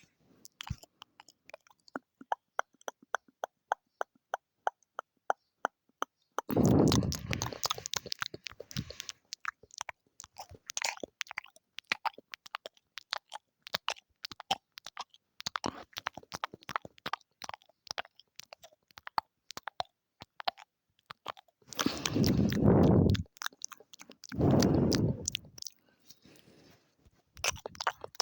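Close-miked ASMR mouth sounds: long runs of quick, wet clicks and smacks from tongue and lips. Three times the mouth sounds swell into longer, louder noisy bursts, about a quarter of the way in and twice more past the three-quarter mark.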